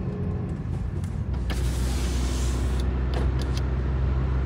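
Car's electric side window whirring down for just over a second, about a second and a half in. After that, steady road and wind rumble comes in louder through the open window.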